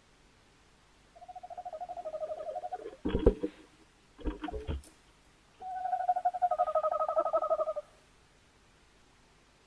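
Tawny owl hooting: two long, quavering hoots, with two short, rougher calls between them.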